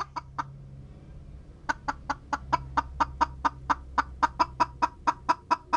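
Silkie hen clucking: a few short clucks, a pause of about a second, then a fast, even run of short clucks at about five a second.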